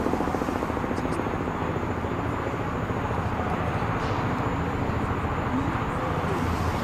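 Antonov An-70's four Progress D-27 propfan engines running with a steady drone and a fast throbbing beat.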